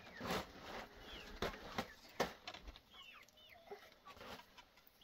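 Birds chirping in short, quick falling calls, repeated several times, with a few sharp knocks and taps in the first couple of seconds.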